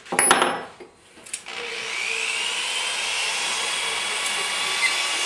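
Cordless drill spinning an adjustable hone inside a cast-iron valve guide of a Volvo four-cylinder cylinder head, sizing the guide. After a brief burst of noise near the start, it runs as a steady whir from about a second and a half in, with a faint whine that rises as it comes up to speed.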